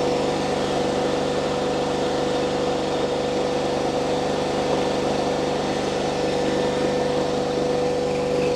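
Mini skid steer loader running steadily at a constant engine speed, with a steady high whine held over the engine.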